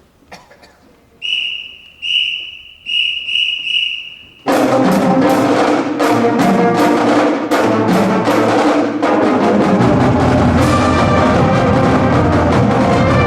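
A whistle blown five times in a rhythmic count-off, then a full high school marching band of brass and drums comes in loudly together.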